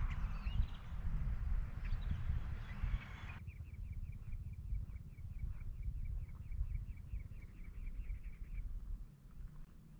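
Desert birds chirping over a steady low wind rumble. About three seconds in the sound changes abruptly to a regular run of short high chirps, about four a second, that stops a second before the end.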